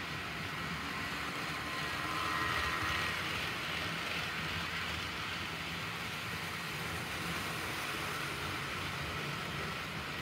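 HO scale model trains running on the layout's track: a steady whir of small electric motors and wheels rolling on rails, swelling a little about two seconds in.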